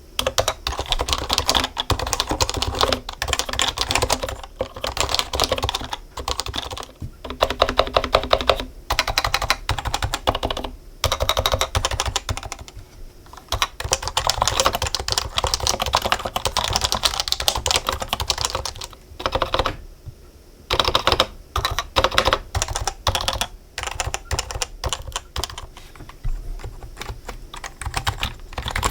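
Continuous fast typing on a Happy Hacking Keyboard with Topre electrostatic capacitive switches: a steady stream of soft key clacks and thocks, broken by a couple of brief pauses.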